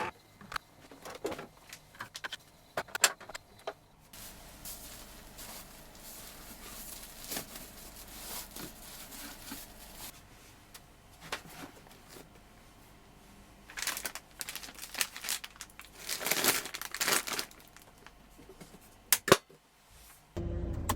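Objects being handled at close range: scattered clicks and knocks, with stretches of crinkling and rustling like packaging or bags being moved.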